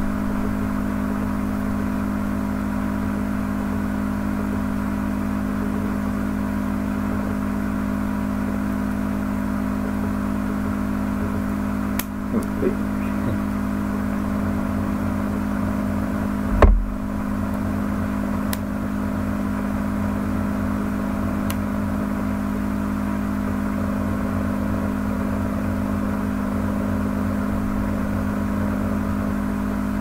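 A steady droning hum with several held tones. A few light knocks come about halfway through, followed by one louder thump a few seconds later.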